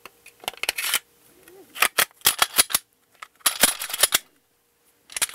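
Glock 34 Gen 4 pistol's slide being fitted back onto the polymer frame: a run of sharp metallic clicks and snaps in four short clusters as the slide goes onto the rails and is worked.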